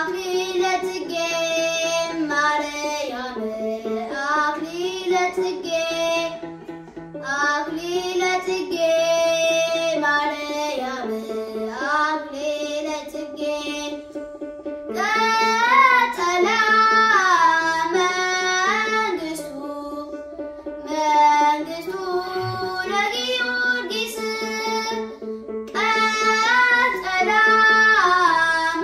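A boy singing an Ethiopian Orthodox mezmur, accompanying himself on a krar, the small Ethiopian bowl lyre. He sings in long, ornamented phrases with several short breaks, while the low plucked notes of the krar carry on underneath.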